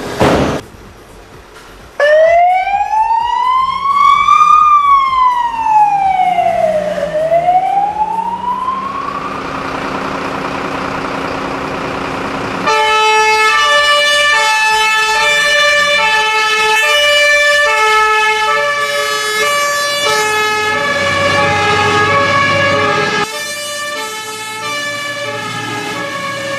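Fire engine sirens: a wailing siren glides slowly up, down and up again in pitch, then from about halfway two-tone sirens take over, switching back and forth between their notes. There is a short thump at the very start.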